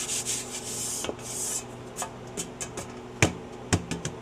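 Freeze-dried cilantro powder being scraped off a metal freeze-dryer tray: hissing scraping strokes for about the first second and a half, then a run of sharp taps and knocks as the tray is handled, the loudest a little past three seconds. A steady low hum runs underneath.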